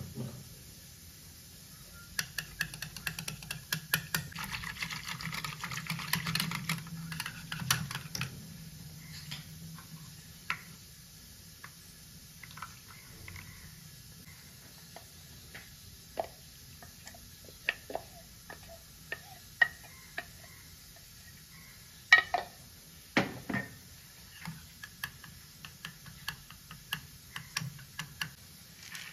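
Metal wire whisk beating yogurt in a bowl: rapid clicking and slapping of the wires for several seconds, then scattered clicks and scrapes as the mixing slows, with two sharp knocks of metal against the bowl a little past the middle.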